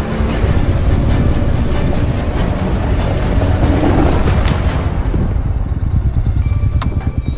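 Motorcycle engine running while the bike rides through a shallow stream, with water splashing around the wheels. From about five seconds in, the engine runs at low revs with a steady pulsing beat.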